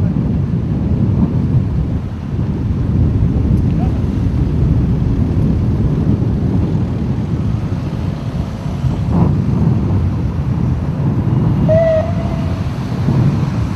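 Loud, steady low rumble of wind buffeting the camera microphone over passing road traffic, with a brief short tone near the end.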